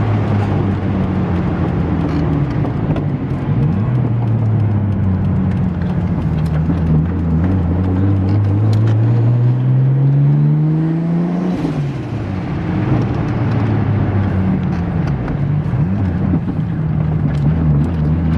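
Freshly rebuilt Toyota 1JZ straight-six, being run in, pulling a car along under way. It holds a steady note, then accelerates with a rising pitch for about five seconds and drops off sharply just past halfway before settling steady again.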